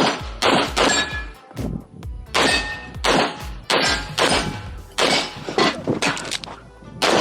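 A string of pistol shots fired in quick pairs and short groups, with steel plates ringing as some of them are hit.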